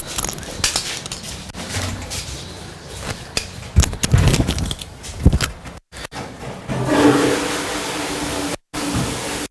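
A toilet flushing: a rush of water starts about seven seconds in and carries on steadily. Scattered knocks and scrapes come before it.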